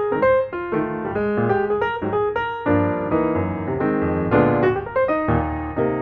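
Intro music: piano or electric piano playing a quick run of notes with chords underneath.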